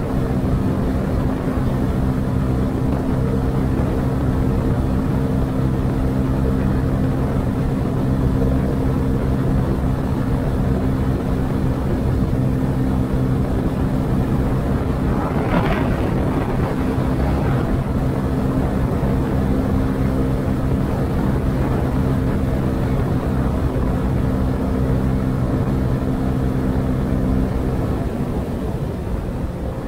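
Honda CB125R's single-cylinder engine through its stock exhaust, holding steady revs at a cruise of about 90 km/h, with wind rushing over the chest-mounted camera's built-in microphone. A brief swell of noise rises and falls about halfway through.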